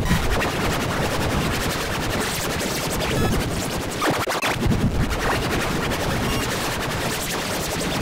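A TV channel ident's soundtrack mangled by heavy audio distortion effects: a harsh, dense noisy crackle with rattling bursts throughout, the original music barely recognisable.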